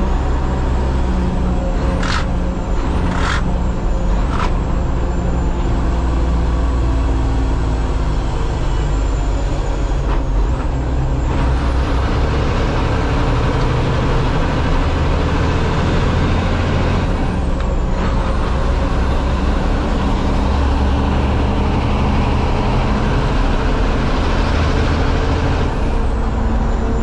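Inside the cab of a dump truck under way, its Cummins X15 diesel runs steadily, the engine note stepping up and down as gears are changed. A few short sharp sounds come about two to four seconds in, and a broad rushing noise of road and wind swells through the middle and latter part.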